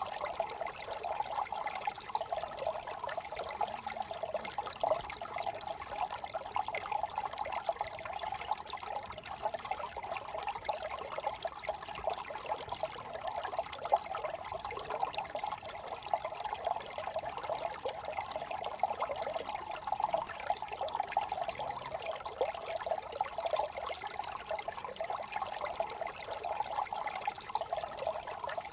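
Shallow brook trickling and burbling over stones, a steady run of water with small splashes throughout.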